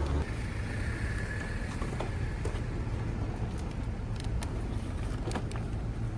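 Steady low rumble of a moving vehicle's engine, with a faint high tone in the first two seconds and a few light clicks.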